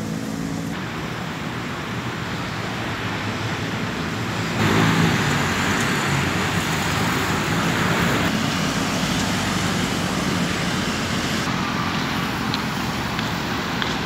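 Road traffic passing on a city street: the steady hum of car and motorbike engines with tyre noise, growing louder about four and a half seconds in.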